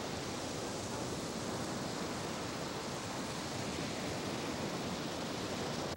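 Heavy sea surf breaking and washing over a rocky shoreline, a steady unbroken rush of noise.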